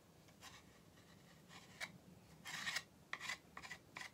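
A handful of short, faint, irregular scrapes of a screwdriver's steel tip on a small piece of wood, scraping off excess glue.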